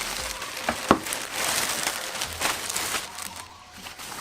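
Plastic packaging crinkling and rustling as a motorcycle cowling part is handled, with a sharp click about a second in.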